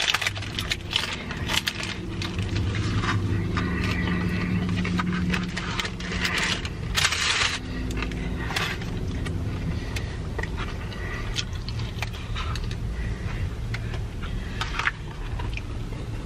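Eating fast food in a car: chewing and mouth sounds with the crinkle and rustle of food wrappers, in many short clicks and crackles, over a low steady hum in the car cabin.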